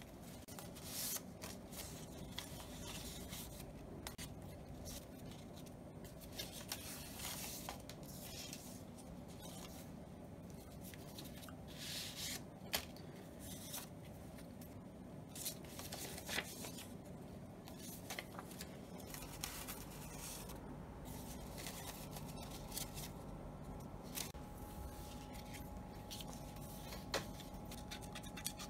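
Paper handled close up: printed paper cutouts and sheets of grid paper rustling, sliding and tapping against each other, with scissors cutting paper. One sharper snap comes a little under halfway through.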